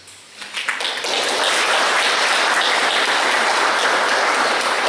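Audience applauding. The clapping begins about half a second in and quickly builds to a steady level.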